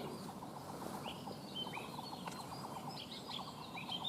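Small birds chirping faintly: scattered short, sliding chirps, over runs of a rapid, even ticking trill.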